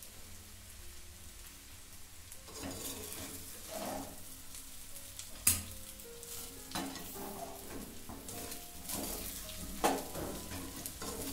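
Soaked sabudana (tapioca pearls) being stirred and roasted in a metal kadhai with a soft sizzle and the rustle of the pearls being turned. Two sharp metal knocks on the pan, about five and a half and ten seconds in, are the loudest sounds.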